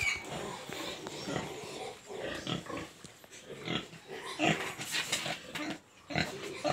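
Domestic pigs grunting in a string of short, irregular grunts, more frequent and louder in the second half.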